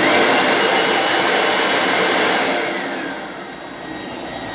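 Hoover WindTunnel 3 Pro Pet upright vacuum cleaner switched on, its motor starting suddenly with a rising whine and running steadily. About three seconds in the whine falls and the sound settles quieter. The owner thinks the motor has a bearing sound to it.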